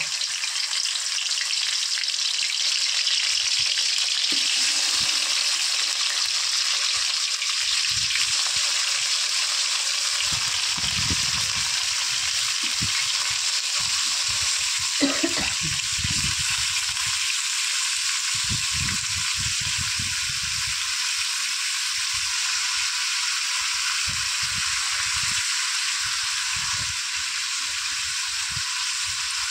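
Raw chicken pieces frying in hot oil in a kadai, a steady loud sizzle, with soft low thuds now and then as more pieces go into the pan.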